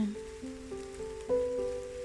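Gentle background music: a slow melody of held notes that change every half second or so, with faint rain pattering behind it.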